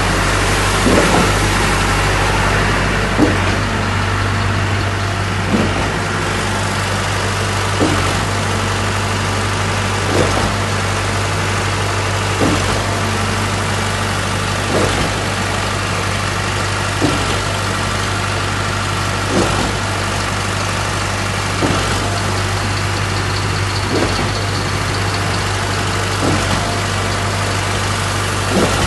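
Concrete pump running steadily: a constant engine hum with a regular knock about every two and a half seconds, the pump cycling its strokes as it pumps concrete.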